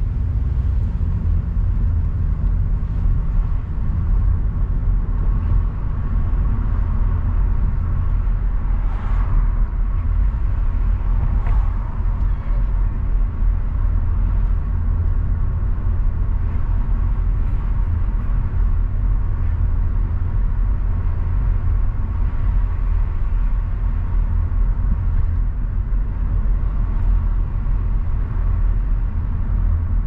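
Car driving along a city street: a steady low rumble of road and engine noise. Two brief, higher sounds rise over it about nine seconds in and again a couple of seconds later.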